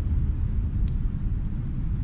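Fireplace fire burning with a steady low rumble and sparse crackles, one sharper pop about a second in.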